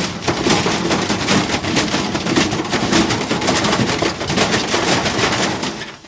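Front-loading washing machine spinning with a brick in its drum, banging rapidly and without a break as it shakes itself apart.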